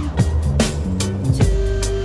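Background music with drum hits over a low bass line and held synth-like notes.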